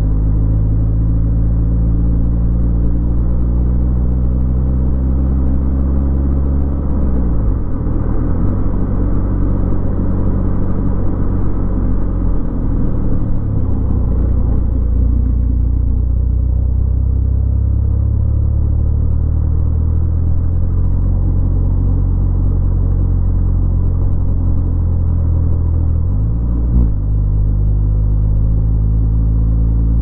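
Car engine and road noise while driving, the engine note steady and low. Its pitch dips and comes back up three times: about a quarter of the way in, near halfway, and near the end.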